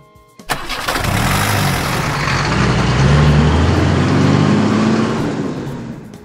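Truck engine sound effect: a large engine starts suddenly, revs up as it pulls away, and fades out near the end.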